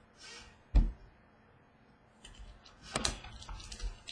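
Handling noise as trading cards are sorted at a wooden table: a brief swish, a single sharp thump about a second in, then light clicks and rustling of cards and sleeve fabric close to the microphone.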